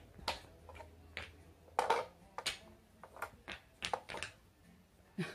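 Wooden alphabet blocks clacking and knocking against each other and the table as they are picked up and stacked: a dozen or so irregular sharp knocks, the loudest about two seconds in.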